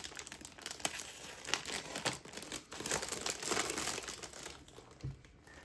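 Clear plastic packaging bag around a folded blanket crinkling as it is pulled open by hand, with irregular crackles that thin out near the end.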